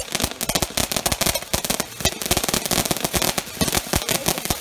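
Ground fountain firework spraying sparks, with a dense, unbroken run of rapid crackling pops.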